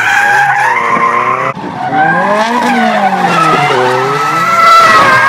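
Drift car's engine revving hard, pitch rising and falling as the throttle is worked through the slide, with tyres squealing and skidding on the tarmac. The sound breaks off abruptly for a moment about a second and a half in.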